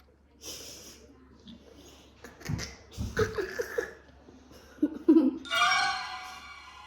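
Short bursts of giggling and laughter from kids reacting to a bite, then a brief musical sting with steady held notes that fades out near the end.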